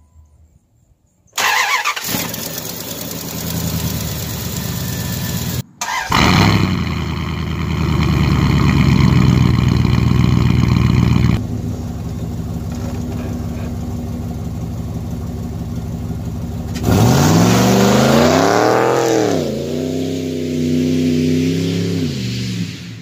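A 1999 Dodge Durango's 5.2-litre V8 revs up sharply about a second and a half in and runs hard through a one-wheel-peel burnout, with a single spinning tyre squealing over the engine. Near the end the revs fall and then climb again as the truck pulls away.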